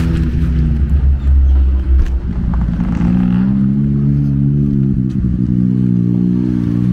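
A motor vehicle's engine runs steadily at low revs close by, with a deep rumble in the first two seconds that gives way to an even, slightly wavering engine note.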